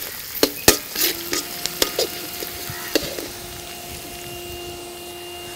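A metal skimmer ladle stirring and scraping dals, chillies and tamarind frying in oil in a black iron kadai, with a steady sizzle. Sharp scrapes come several times in the first three seconds, then the stirring eases and the sizzle goes on alone.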